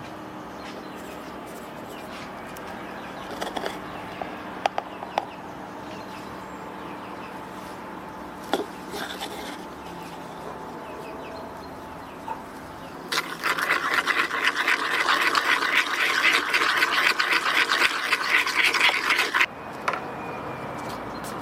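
A spoon knocks a few times against small wooden spice pots. Then comes about six seconds of brisk, rapid stirring in a wooden bowl of liquid, which stops abruptly.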